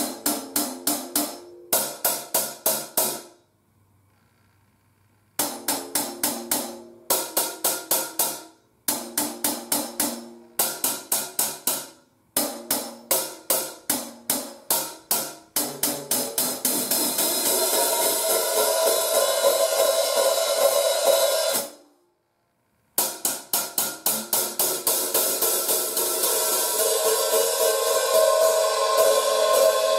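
Paiste 2002 14-inch hi-hat played with sticks in short phrases of even strikes, about four a second, with brief pauses between them. About halfway through and again near the end, the strikes run together into a long ringing wash, as the cymbals are played more open.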